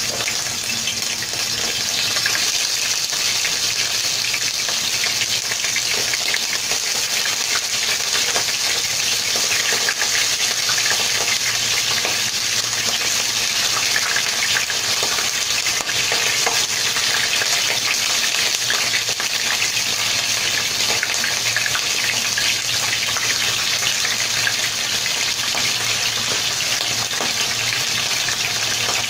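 Whole capelin frying in hot oil in a nonstick wok: a steady sizzle with crackling that starts sharply as the first fish goes into the oil and carries on as more fish are added.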